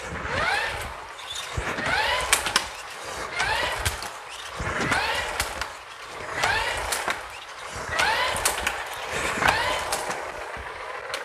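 Whipr portable ski erg worked with double-pole pulls: its resistance unit whirs up in a rising whine on each pull, about seven strokes roughly a second and a half apart, with sharp clicks among them.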